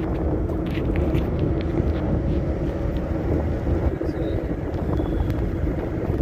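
Road and engine noise inside a moving vehicle's cabin: a steady low rumble with a constant hum and a few faint clicks.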